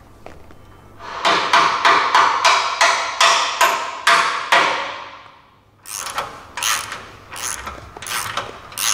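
A hammer tapping steel suspension hardware: about nine sharp, ringing blows at a steady pace, dying away after about four seconds. After a short pause, a ratchet wrench turns a bolt in short strokes, about two a second.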